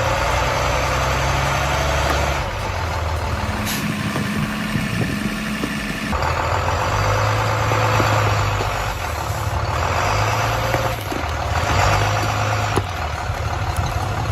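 A large vehicle's engine running steadily, with an abrupt change in the sound about six seconds in.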